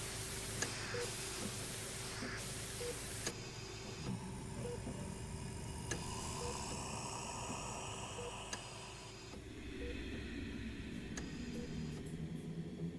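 Layered horror ambience: a steady electrical hum with a short beep about every two seconds. Loud hissing noise cuts off about three seconds in, leaving a fainter drone that drifts in pitch.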